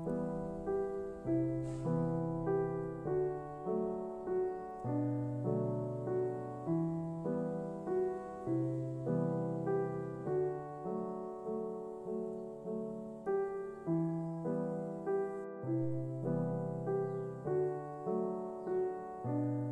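Background piano music: a slow, gentle melody of evenly paced notes, about one and a half a second, over a bass line that changes every second or two.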